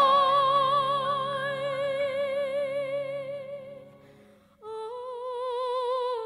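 Background music: a long held melody note with vibrato over soft low accompaniment fades out about four seconds in, and after a short gap a new held vibrato note begins.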